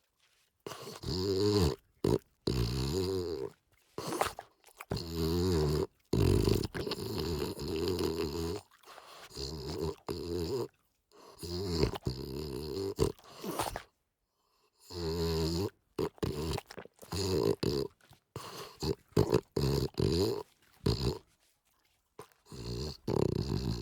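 Bulldog purring: a low, rumbling, snore-like sound in a string of breaths, each lasting up to a couple of seconds, with short gaps between and two longer pauses partway through.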